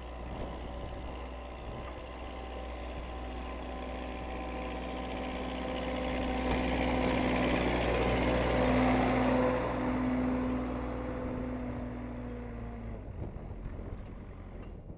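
Case 580C backhoe's engine running while it pushes snow. The sound grows louder toward the middle, then eases off and drops away near the end.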